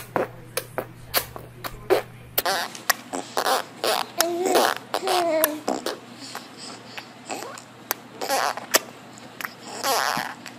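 Babies making mouth noises. First comes a quick series of lip pops and smacks. Then come wet raspberry sputters blown through pursed lips, with a few short vocal sounds that bend in pitch.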